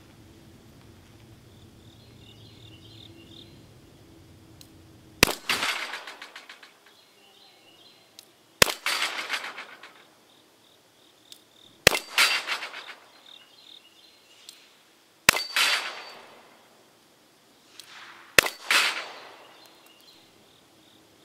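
Five single shots from an Enfield No. 2 Mk I* .38/200 double-action revolver, fired about three seconds apart. Each shot is followed within a second by a ringing clatter as the heavy bullet knocks down a steel plate.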